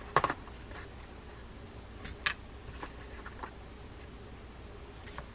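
Small clicks and ticks from handling the metal and plastic parts of a Penn Fathom lever drag fishing reel. A sharp click comes just after the start, then a few lighter ticks, scattered and irregular.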